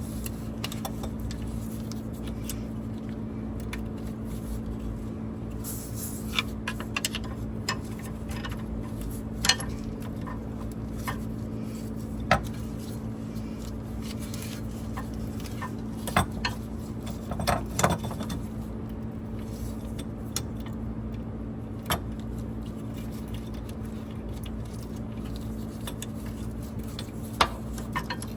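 Metal clinks and knocks at irregular intervals as a seat shock is worked back into its mounting bracket by hand, with a small cluster of clinks about two thirds of the way in, over a steady low hum.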